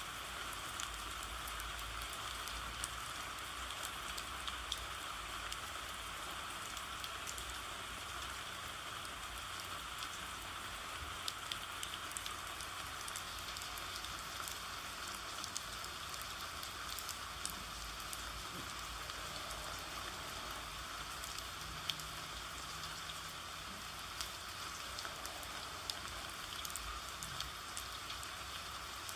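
Steady rain falling, an even hiss with scattered small sharp ticks of drops.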